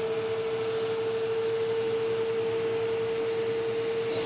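Eureka AirSpeed NEU100 upright vacuum cleaner running steadily while sucking up dust, a constant whining hum over the rush of air.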